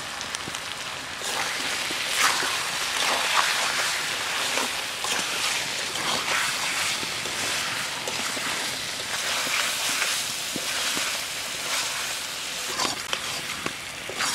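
Mutton sizzling in spiced oil in a metal kadai while a metal spoon stirs it, with repeated scrapes and clicks against the pan; the sizzle grows louder about a second in. This is the kosha stage, the meat being fried down with its spices before water is added.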